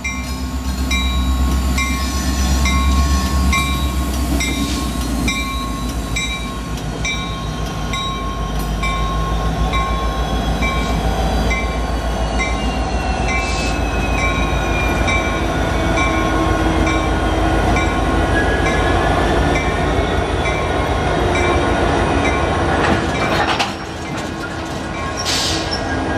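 Norfolk Southern diesel locomotives, led by an EMD SD60, rumbling past at low speed. A bell dings steadily about twice a second until roughly two-thirds of the way through, and a slow falling whine rises above the engines in the middle.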